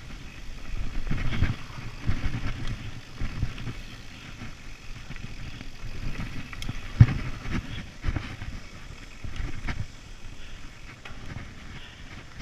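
Mountain bike ridden fast down a dirt forest singletrack: a low rumble of tyres and air, with irregular clatter from the bike over bumps and one sharp knock about seven seconds in.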